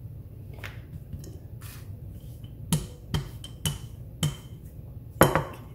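Wooden rolling pin knocking on a granite countertop while the edges of a square of paratha dough are evened up: four sharp taps about half a second apart, then a louder knock near the end.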